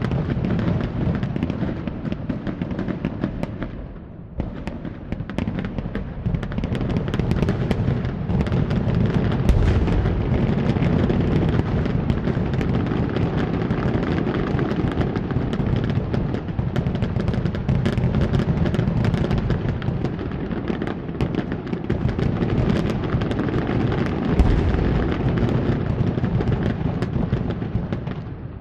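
Fireworks display going off in a dense barrage: many overlapping bangs, booms and crackles, briefly thinning about four seconds in and then building again.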